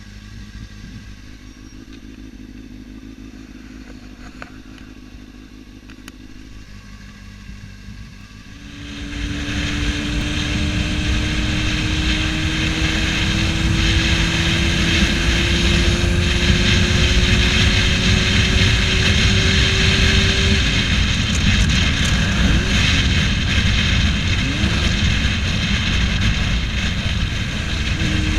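Motorcycle engine running quietly at first. About nine seconds in, the sound jumps to a loud, dense riding noise, and the engine note climbs steadily in pitch for about ten seconds as the bike accelerates, then breaks off.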